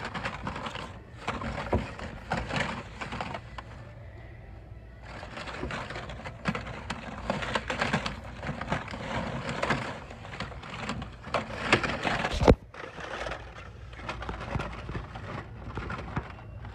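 Hot Wheels blister-card packs rustling and clicking against each other as a hand rummages through them in a cardboard display bin, with a sharp knock about twelve seconds in.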